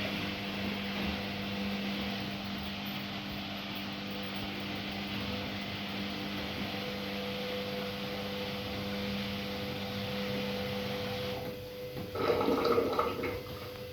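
Haier HW100-1411N washing machine with water running through it: a steady rushing with a low, even hum. A louder, brief noise about twelve seconds in.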